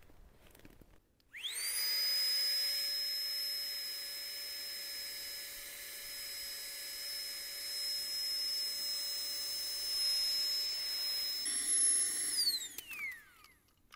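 Flextail battery-powered mini air pump in deflate mode, sucking the air out of an inflatable sleeping pad. About a second in it spins up to a steady high whine, the note shifts near the end, and it winds down with a falling whine as it is switched off.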